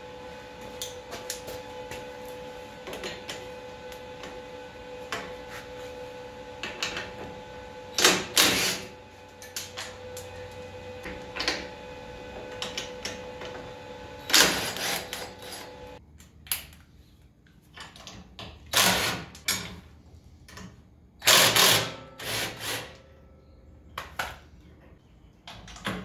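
Cordless impact wrench in about half a dozen short bursts, loosening the bolts that hold a tack-welded push bar to a van's front frame. A steady background hum with a tone stops about two-thirds of the way through.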